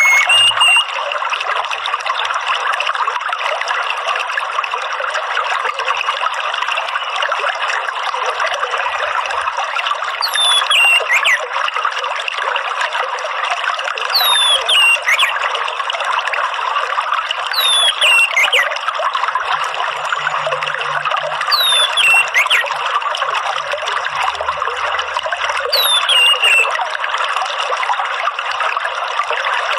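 Water trickling steadily. From about ten seconds in, a short falling whistled call repeats about every four seconds over it.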